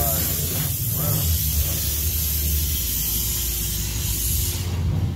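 High-pressure car wash water jets spraying against the windshield, heard from inside the car as a dense hiss over a low rumble. The spray cuts off about four and a half seconds in.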